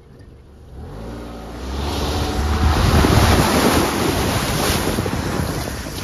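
Car driving through a shallow, gravel-bottomed river. Water splashes and rushes against the tires and underbody, building from about a second in as the engine note rises under acceleration, and near the end river gravel crackles under the tires.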